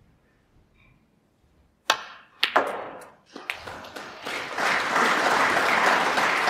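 Snooker balls clicking: the cue striking the cue ball about two seconds in, then a couple of sharp ball-on-ball knocks as the red is potted. An audience starts applauding from about four seconds in and keeps going.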